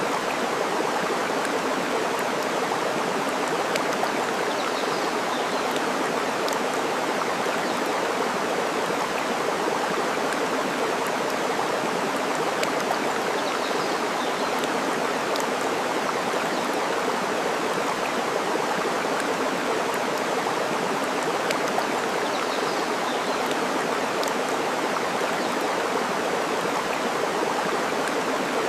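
Steady rush of flowing water, with scattered sharp crackles from a burning wood fire and a few faint bird chirps.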